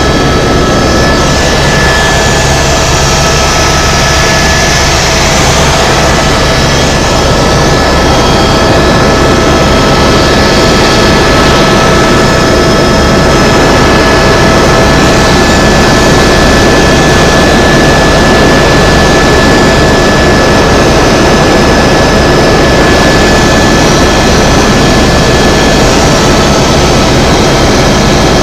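Helicopter in flight: loud, steady engine and rotor noise with a low rumble and several constant whining tones, unchanging throughout.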